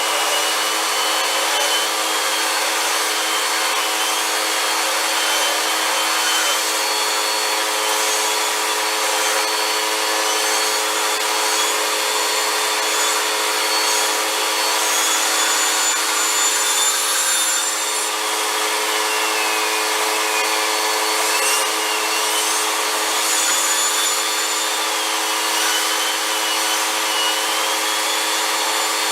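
Vacuum cleaner motor running steadily, with a high whine that wavers in pitch as the airflow changes.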